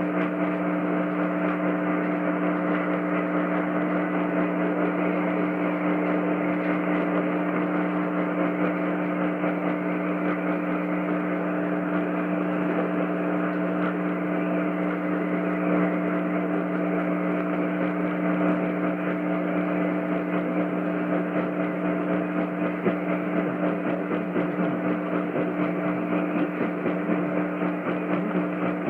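Dead air over an AM radio broadcast: a steady electrical hum made of several low unchanging tones, under an even band-limited hiss, with no voice message.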